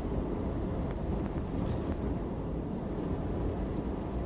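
Steady road and engine rumble inside a moving car's cabin, its tyres running over a snow-covered road.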